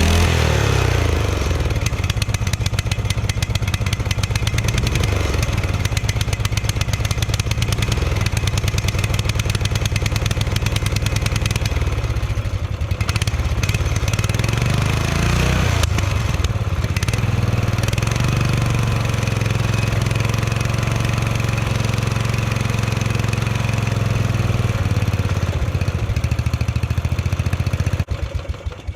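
Murray riding lawn mower's engine running loud and rough, its speed rising and falling, then shutting off near the end. It is running badly because the choke is stuck on and the throttle is stuck wide open with the governor sticking.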